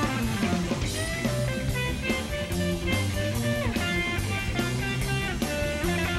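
Progressive rock band playing live, an instrumental passage with no vocals: electric guitars and a busy electric bass line over keyboards, driven by a steady drum-kit beat.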